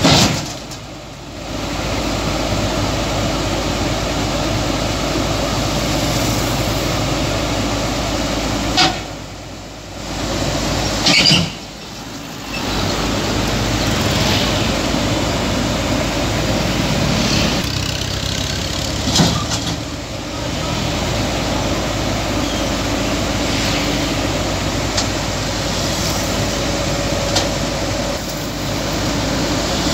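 Komatsu PC200 hydraulic excavator's diesel engine running under load as the machine climbs backwards onto a flatbed trailer, levering itself up with its arm, with a few sharp knocks and clanks.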